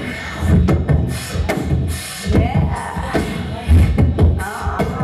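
Beatboxing into a microphone cupped against the mouth, amplified: low kick-like thumps about twice a second with sharp clicks between them, and a few gliding vocal tones about halfway through and near the end.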